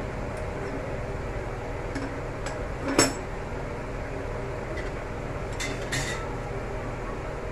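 Metal kitchen utensils clinking: one sharp clank about three seconds in and a few lighter clinks around it and near six seconds, over a steady low hum.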